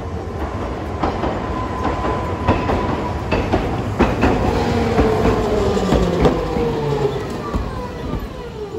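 Hiroshima Electric Railway 'Green Liner' articulated tram passing close by on street track, its wheels rumbling and clicking over the rails. A motor whine falls steadily in pitch over the last few seconds as the tram slows.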